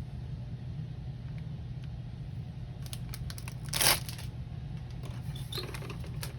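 Thin plastic parts bag being handled and torn open: scattered crinkling, one short loud rip just under four seconds in, then more crinkling. A steady low hum runs underneath.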